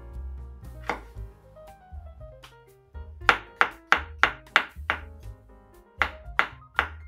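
Kitchen knife slicing mushrooms on a wooden cutting board. One knock about a second in, then a quick run of six knocks at about three a second, and three more near the end.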